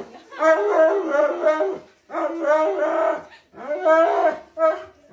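Dog howling in a run of long drawn-out calls, each rising and falling in pitch, with short breaks between them.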